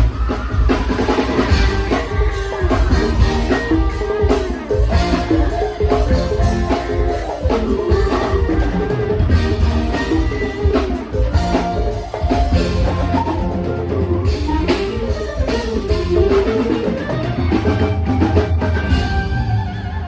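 Live band playing a loud instrumental show opening: full drum kit and bass under an electric guitar lead line.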